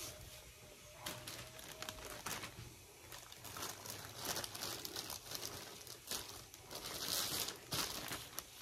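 Clear plastic bag crinkling as a rolled canvas is handled and worked into it: a long run of irregular crackles, loudest about seven seconds in.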